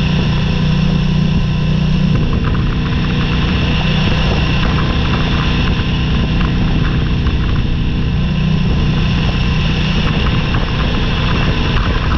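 Motorcycle engine running at a steady speed on a gravel road, with tyre noise and scattered small ticks of gravel.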